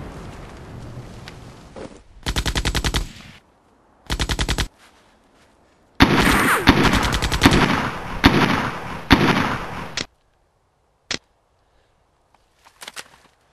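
Automatic gunfire: two short rapid bursts, then about four seconds of heavier firing with several louder single shots, cutting off abruptly, followed by one sharp crack. It opens on the fading rumble of an explosion.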